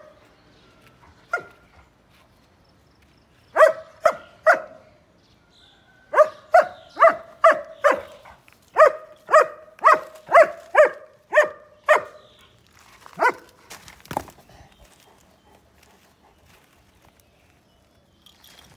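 A dog barking repeatedly: a single bark, then three quick barks, then a long run of about a dozen barks at roughly two a second. The barking stops about two-thirds of the way through.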